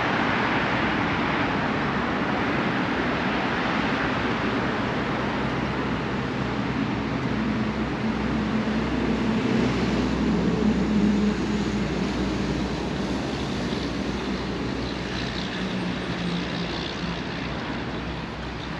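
Steady road traffic noise from a nearby street, with a low engine drone that swells about halfway through and then fades.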